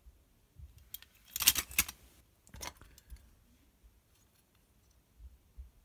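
Die-cast metal toy vehicles clinking and rattling against one another as they are handled and rummaged through in a box, a quick run of clatter about a second and a half in, a shorter one soon after, then a few light ticks.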